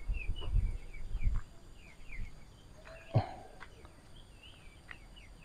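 Small birds chirping in short, repeated calls in the open countryside, with a low rumble in the first second or so and one short, louder sound about three seconds in.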